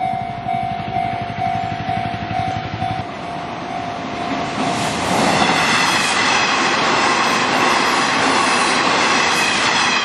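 Japanese level-crossing warning bell ringing at about two strokes a second. From about five seconds in, a Hanshin 8000-series train passing through the crossing rises in loudness, and its running noise covers the bell.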